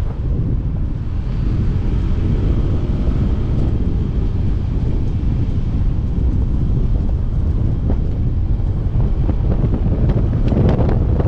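Wind buffeting the microphone on a moving motor scooter, a steady loud rumble with the scooter's small engine running underneath. It grows louder briefly near the end.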